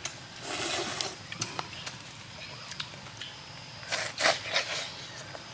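Mouth sounds of someone eating cooked eel by hand: two short noisy slurps, one about half a second in and a louder one about four seconds in, with scattered small clicks.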